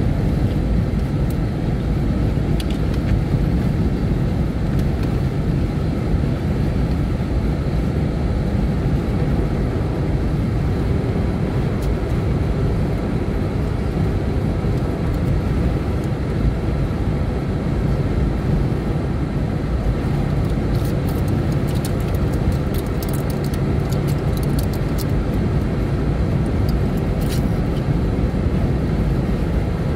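Steady low rumble of a car on the move, with engine and road noise and an even hum. A few faint light ticks come in the second half.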